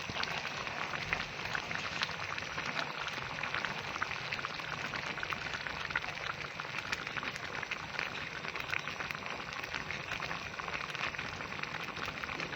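Milk-and-flour white sauce simmering in a pan over medium-low heat, a steady dense crackle of small bubbles, with cheddar melting into it.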